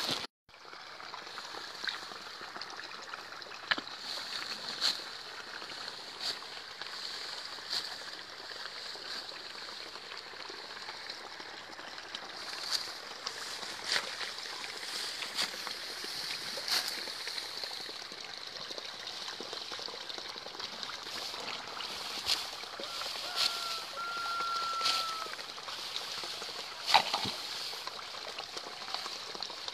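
Steady outdoor hiss with irregular sharp clicks and rustles throughout, and a brief thin whistle-like tone about 23 seconds in.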